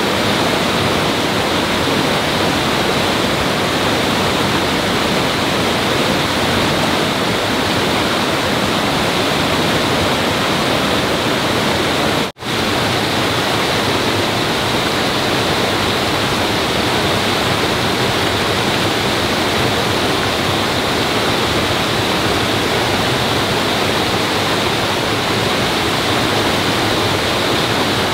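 Loud, steady rushing of flowing water, cut off for an instant about twelve seconds in.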